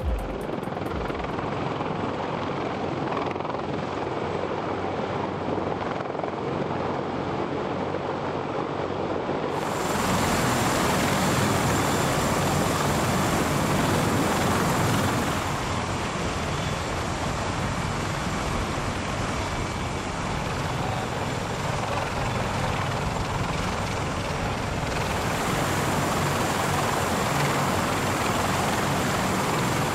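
Military rotorcraft running at power: a steady, dense rotor and turbine noise. Its tone changes abruptly about ten seconds in, and again near fifteen and twenty-five seconds.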